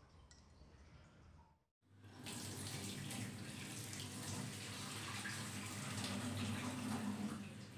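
Tap water running and splashing into a stainless steel sink, next to a steel pot of boiled rice that is being drained. It starts about two seconds in, after a faint, quiet opening, and runs steadily.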